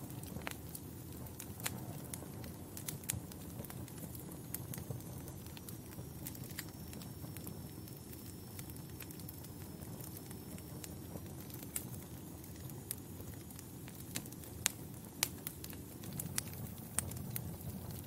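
Wood fire crackling in a fireplace: a low, steady rush of flames with irregular sharp pops and snaps, a few louder pops about two-thirds of the way through.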